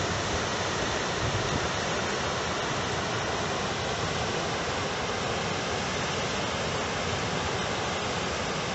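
Gullfoss waterfall: a steady, unbroken rush of a large volume of water pouring over the falls into the gorge.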